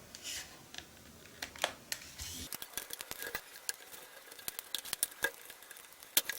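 Plastic back cover of a Samsung Galaxy Note 10.1 (2014) tablet being prised off, its snap clips releasing as a run of small, irregular clicks that come thick and fast in the second half.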